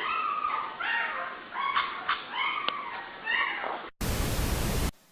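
A sleeping dog vocalizing in its sleep: a run of wavering, rising-and-falling whines and yips. About four seconds in it cuts to a burst of static-like hiss lasting about a second, then near silence.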